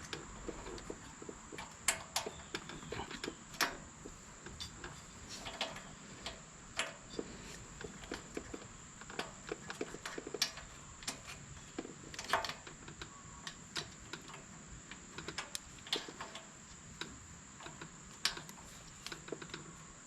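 Irregular light clicks and taps of small metal valve-train parts, such as rocker arms, being handled and fitted on a generator engine's cylinder head, with a faint steady high-pitched whine underneath.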